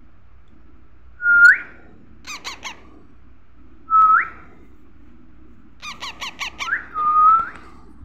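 Baby parakeet calling: three loud, held squawks that each end in a sharp upward flick, with quick runs of short chirps between them.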